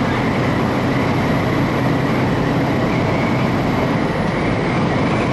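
Steady road and engine noise of a semi-truck driving at highway speed, with a faint steady whine above it.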